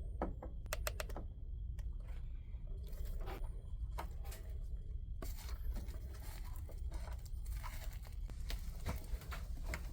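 Small hand-work noises while the wiring of an electric water heater's heating element is reconnected with a screwdriver: a few sharp clicks near the start, then denser scraping and crinkling from about five seconds in.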